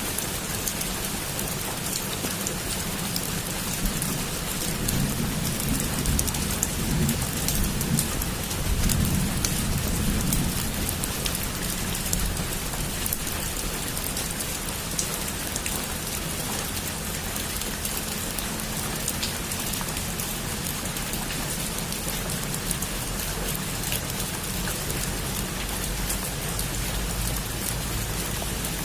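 Heavy rain drumming on a roof: a steady hiss full of individual drop ticks. A low rumble swells and fades between about 4 and 11 seconds in.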